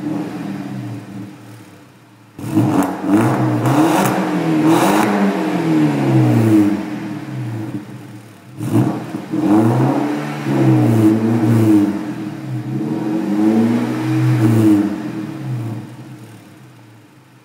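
BMW 318i's four-cylinder petrol engine revved repeatedly while standing still, through a mariani sport exhaust system: a run of throttle blips, the engine note climbing and falling back again and again, dropping toward idle about two seconds in and again about eight seconds in, and easing back down near the end.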